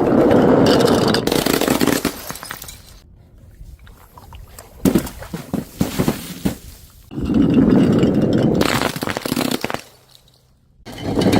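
Glass breaking in two long, loud bursts, one at the start and one about seven seconds in, with a scatter of sharp clinks between them; another burst begins near the end.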